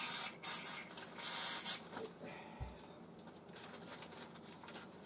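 Aerosol parts cleaner sprayed onto a new miniature ball bearing in three short hissing bursts, degreasing it before it is greased; a soft low bump follows.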